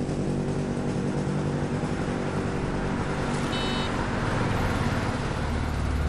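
Steady road traffic: motor vehicle engines running past, with a brief high-pitched tone about halfway through.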